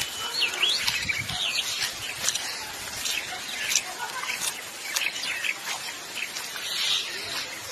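Small birds chirping: a run of quick, looping chirps about half a second in and again past the middle, over a steady outdoor hiss with scattered sharp clicks.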